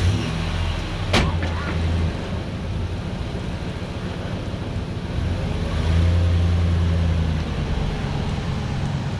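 Ford F-150 pickup's engine running just after starting, then growing louder from about six seconds in as the truck pulls away. A single sharp click comes about a second in.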